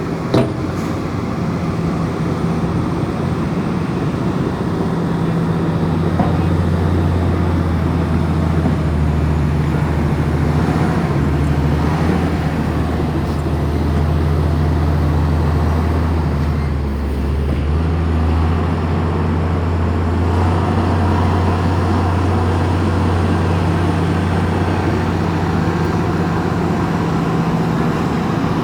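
Komatsu bulldozer's diesel engine running steadily under load, its note dipping briefly about two-thirds of the way through. A sharp knock sounds just after the start.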